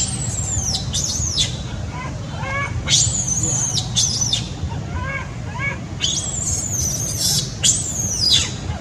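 Baby monkey screaming: about six shrill, very high cries that bend down in pitch, coming in two groups with short pauses. The crying is the baby's protest at his mother as he demands to nurse.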